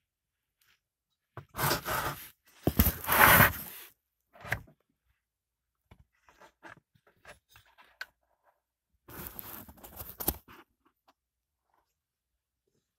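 Scraping and rustling from hands handling a partly dismantled small four-stroke engine, in several rough bursts of a second or so. The loudest comes about three seconds in, with faint ticks in between.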